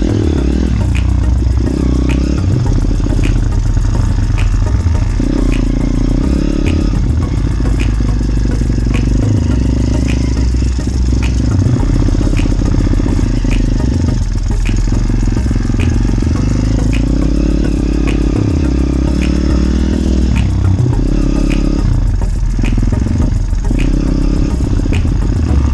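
A small motorcycle engine running under way, its revs rising and easing off, with clattering over rough ground and a light regular tick about every two-thirds of a second.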